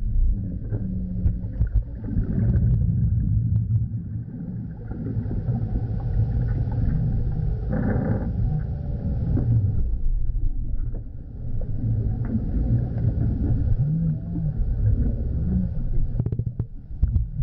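Low, continuous rumbling and churning of water as a large dog paddles and dives, heard through an underwater camera's microphone. A brief brighter rush of water comes about halfway through.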